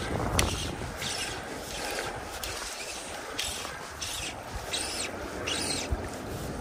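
River water washing and lapping around a floating boat, with a run of short hissy splashes, several of them about a second apart in the second half.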